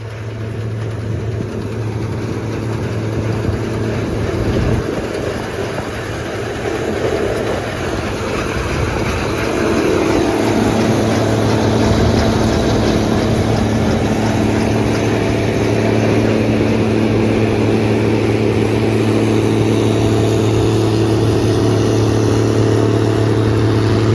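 Combine harvester running at working speed, a steady engine drone that grows louder over the first few seconds, with a higher machinery tone strengthening about ten seconds in as it starts cutting wheat.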